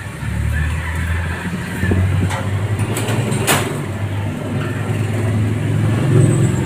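Engine running steadily, its low hum swelling and easing, with two sharp clicks a little over two and three and a half seconds in.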